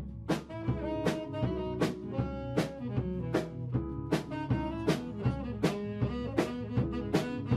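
Small funk band playing an instrumental passage. A drum kit keeps a steady beat with sharp snare hits under an electric bass line and held melody notes.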